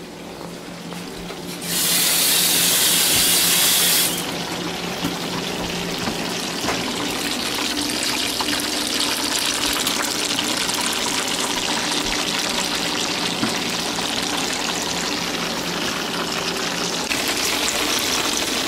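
Bacon-wrapped candy bars frying in a pan, a steady sizzle. A louder burst of hissing lasts about two seconds near the start.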